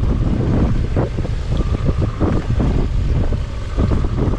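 Wind buffeting the microphone over the steady low rumble of a fishing boat under way at trolling speed.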